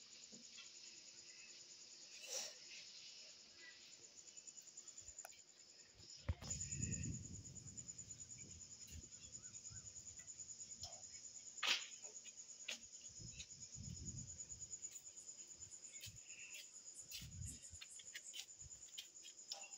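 Crickets trilling steadily and fast, faint and high-pitched. A few low rumbles and a couple of sharp clicks come through over it.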